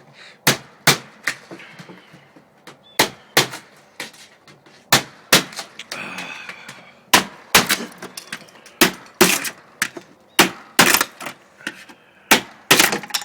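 Hammer blows on wood, struck mostly in quick pairs with short pauses between.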